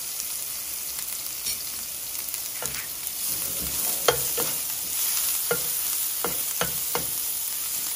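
Pounded shallot and garlic sizzling in vegetable oil in a nonstick frying pan, stirred with a metal spoon that clicks and scrapes against the pan several times in the second half.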